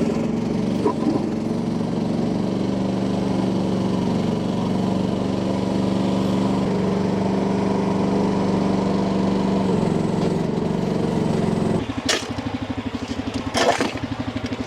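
Skid steer's engine running steadily under load while its hydraulic concrete breaker works through caliche. About 12 seconds in the engine note drops to a fast pulsing idle, and two sharp clanks follow.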